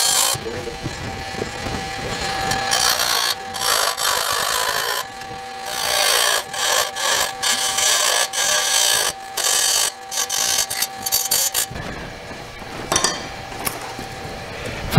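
Wood lathe spinning a wooden duck-call blank while a turning tool cuts it, the cutting coming as repeated scraping bursts over a steady hum. The hum stops near the end.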